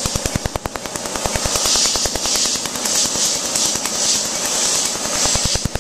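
Tattoo removal laser firing a rapid train of sharp snapping pulses, about ten a second, as it passes over tattooed skin, with a steady hiss of air from the hose aimed at the spot.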